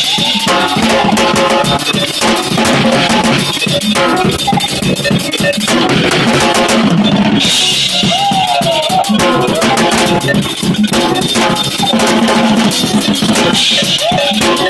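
Live jazz-fusion band playing loudly, with busy drums and cymbals struck with sticks close to the microphone and melodic lines, some gliding in pitch, over them.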